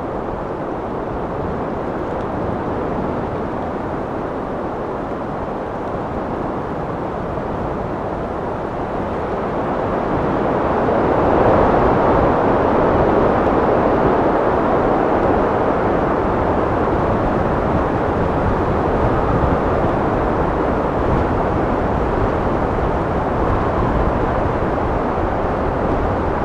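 Steady wind blowing, a dense rushing noise that swells into a stronger gust about ten seconds in and stays up.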